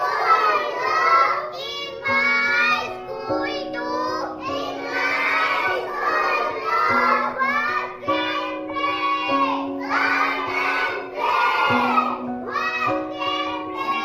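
Children singing a school prayer together, over an instrument playing steady held notes that change pitch with the melody.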